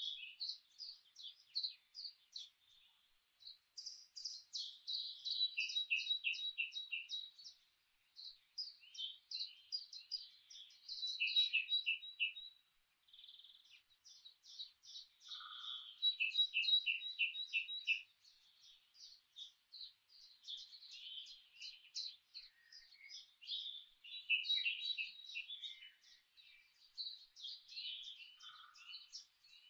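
Small songbirds chirping and singing, a dense run of quick high notes with short repeated phrases, and a brief lower call twice.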